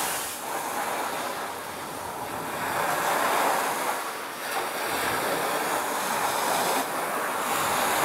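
Ocean surf washing onto a sandy beach: a steady rushing of waves that swells and eases.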